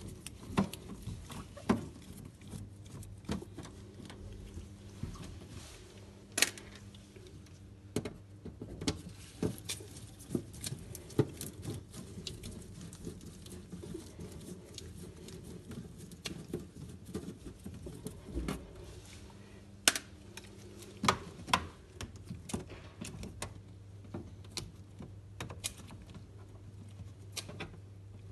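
Irregular clicks, taps and knocks of parts and tools being handled, a few sharper knocks standing out, over a low steady hum.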